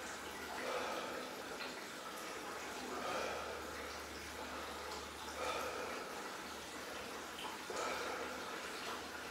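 Slow, even breathing of a man sitting in an ice bath, one breath swell about every two and a half seconds.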